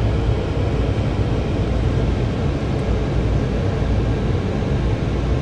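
Car interior noise while driving: a steady low rumble of engine and road noise inside the cabin.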